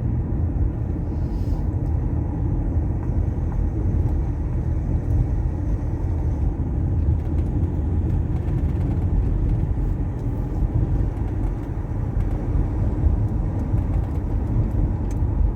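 Steady low engine and road-noise rumble of a car being driven up a long climb on a winding mountain road.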